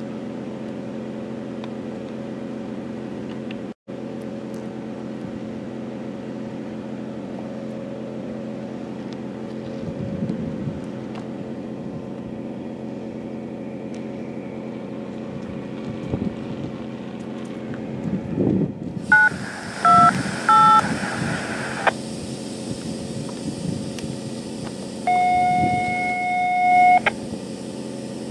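Steady hum of idling diesel locomotives, then a hiss that starts about two-thirds of the way in, a quick run of touch-tone (DTMF) beeps, and near the end a single steady tone of about two seconds.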